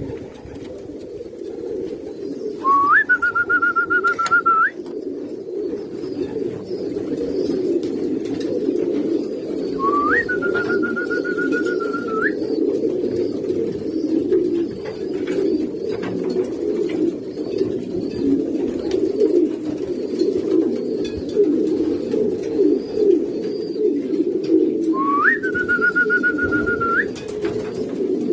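Many racing pigeons cooing together in their loft, a dense, steady sound. Three times a long, level high whistle cuts in over it, each lasting about two seconds and rising at its start; the first, a few seconds in, is the loudest moment.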